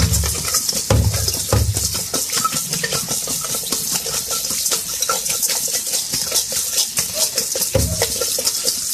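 Tap water pouring onto a prickly pear cactus pad in a stainless steel mesh strainer, with the strainer rattling and knocking against the steel sink as it is worked back and forth to strip the spines. A few heavier thuds come about a second in, shortly after, and near the end.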